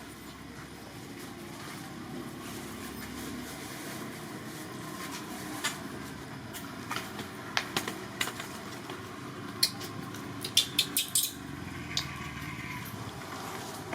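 Scattered sharp clicks and taps over a steady background noise, with a quick run of them about ten to eleven seconds in.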